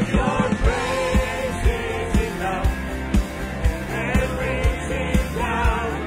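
Live worship band music: a man singing lead into a handheld microphone with backing singers, over the band and a steady drum beat of about two hits a second.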